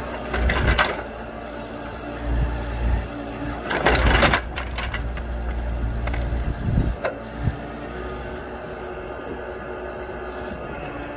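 Mini excavator's diesel engine running under load as its bucket digs and prises at a big tree stump that is still not coming free. Loud crunching and scraping of roots and soil come in bursts about a second in, around two to four seconds in, and again near seven seconds, with a steady engine hum between and after.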